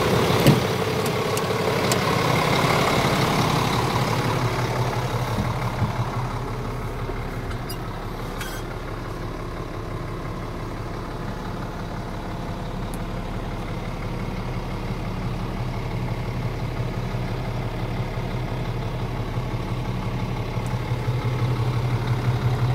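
Scania R450's 13-litre inline-six diesel idling steadily with a low, even hum. It is heard first beside the cab, then from inside the cab, where it sounds quieter and duller. A sharp click comes about half a second in.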